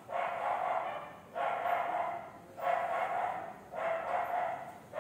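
A dog barking over and over, one bark a little more than once a second, each bark starting sharply and trailing off with an echo.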